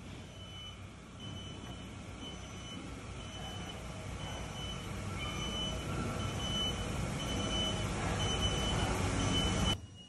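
Factory machinery running with a steady rumble that slowly grows louder, over a short high electronic beep repeating roughly every half second, like a reversing alarm. It cuts off abruptly near the end.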